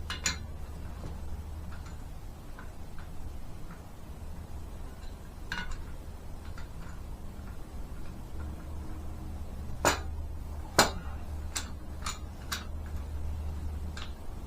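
Scattered sharp metallic clicks and clinks as steel steering-linkage parts and tools are handled, the loudest two about ten and eleven seconds in, over a steady low hum.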